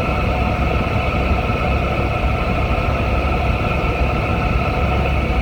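Steady drone of a semi truck's diesel engine and road noise heard inside the cab while driving, a low rumble that holds even throughout.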